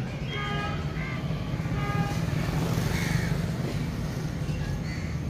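Steady low rumble of street traffic, with short bird calls chirping over it every second or so.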